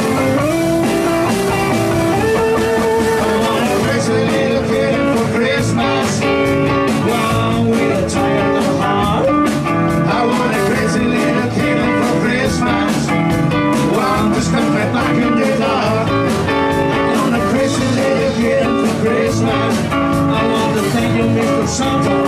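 Live blues-rock band playing: electric guitars, bass and drums, with the cymbals and drums coming in fuller about four seconds in.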